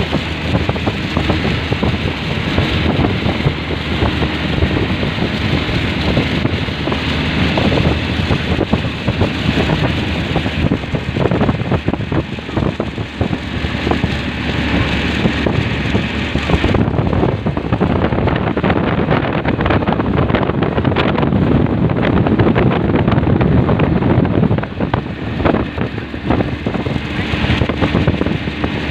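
A vehicle running steadily while wind buffets the microphone. The high hiss drops away suddenly about 17 seconds in.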